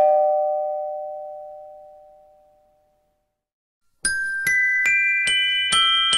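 A two-note chime rings and fades away over about three seconds. After a moment of silence, music of struck, bell-like notes begins about four seconds in, a steady run of notes roughly two to three a second.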